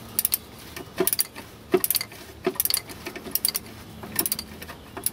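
Ratchet of a small torque wrench on a long extension clicking in short runs, one run a little under a second apart, as the wrench is swung back and forth to tighten the oil pickup pipe bolts.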